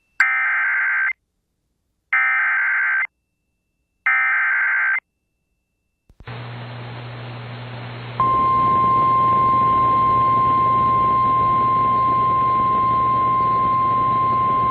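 Emergency Alert System SAME header: three short bursts of screechy digital data tones, about a second each and a second apart, carrying a Severe Thunderstorm Warning. A little later a hum with radio static comes up, and about eight seconds in the single steady tone of the weather radio warning alarm starts and holds.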